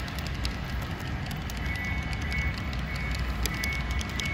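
HO-scale model passenger train rolling along the layout track: a steady low rumble with many small clicks from the wheels over the rail joints. A faint high whine comes and goes in the second half.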